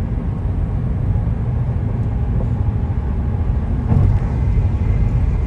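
Road noise inside a car moving at highway speed: a steady, loud low rumble of tyres and engine.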